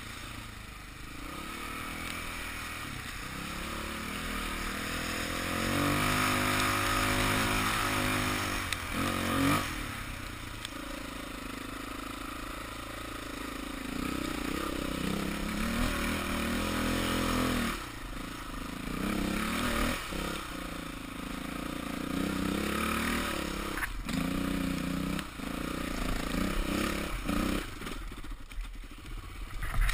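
Dirt bike engine being ridden over muddy trail, its pitch rising and falling as the throttle is opened and closed in repeated surges.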